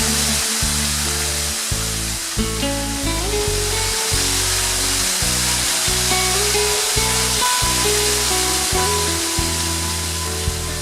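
Background music of slow, held notes over a changing bass line, laid over the steady rushing hiss of a waterfall.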